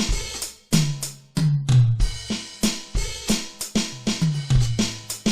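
Portable electronic drum pad playing its kit 14 sounds: a drum beat of kick drum and pitched drum hits with cymbals, a strike every few tenths of a second.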